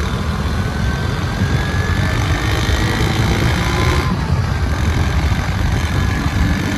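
Motor vehicle on the move: a steady low engine drone with rushing road and wind noise, and a faint whine rising slowly in pitch over the first few seconds.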